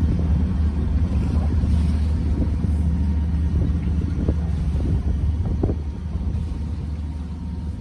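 Steady low rumble aboard a sailing yacht under way, with a few faint knocks about four and five and a half seconds in.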